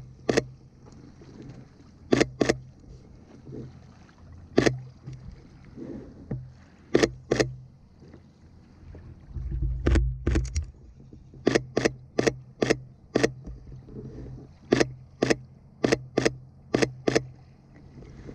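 Sony A7 III shutter firing single frames, about twenty sharp clicks at irregular intervals, several in quick pairs, over a steady low hum, with a brief low rumble about ten seconds in.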